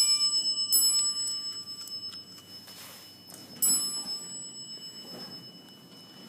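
Elevator arrival chime: a bell-like ding struck twice about a second apart as the down lantern lights, then once more about three and a half seconds later, each ringing on and fading away.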